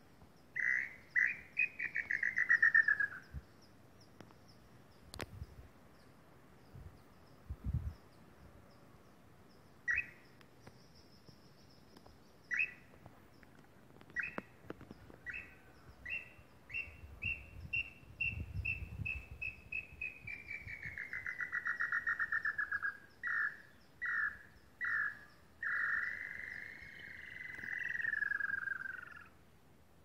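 Lambu pé roxo, a small tinamou, calling: whistled notes that speed up into a fast run and drop in pitch, once near the start and again in a long run through the second half, ending with a few single notes and a long whistle that rises and falls. A faint high chirping goes on underneath, with a sharp click and a few low knocks and rustles.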